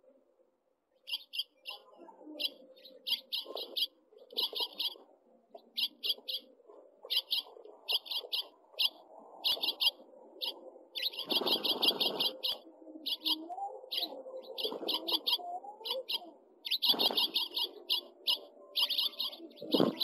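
House finches chirping: clusters of short, high chirps in quick runs, several a second, with a flutter of wings about halfway through.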